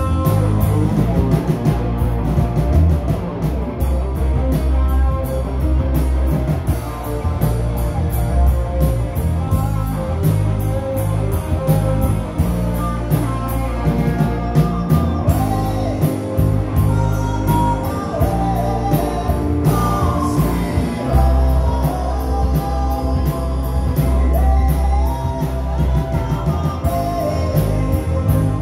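Live rock band playing: electric guitars over bass and a steady drum beat, loud and amplified through the PA.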